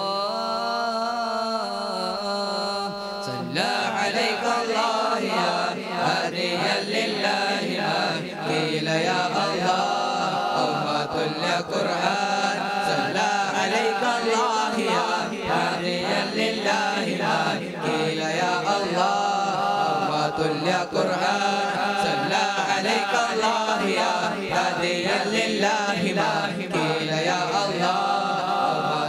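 A group of young men singing an Arabic nasheed together through microphones, a chant-like melody. It opens on one long wavering held note, and about three seconds in the fuller group chanting takes over.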